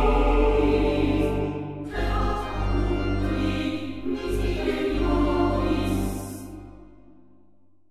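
Background choral music: a choir singing slow, held chords that change twice, then fade out near the end.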